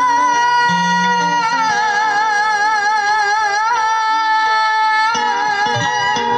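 Vietnamese vọng cổ music: a long held melody note with vibrato over plucked-string accompaniment.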